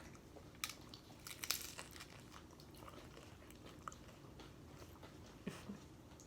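Crunching bites and chewing of tortilla chips piled with nacho toppings, a scatter of sharp crunches, densest in the first two seconds and again briefly near the end.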